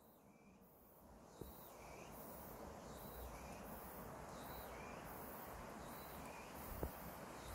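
Faint outdoor ambience on a wooded mountainside: a short high animal call repeating about once a second over a steady haze of wind noise, fading in over the first two seconds. Two brief clicks, one early and one near the end.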